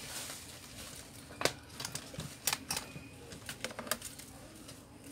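A handful of short sharp clicks and taps from hands handling a laptop's LCD panel and parts on a workbench, over a steady low hum.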